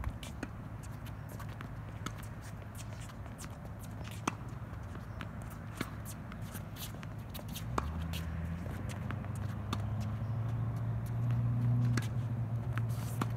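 Tennis rally on a hard court: sharp pops of racket strings hitting the ball every few seconds, with quick scuffs and taps of players' shoes between them. A low steady hum comes in about halfway through and grows louder toward the end.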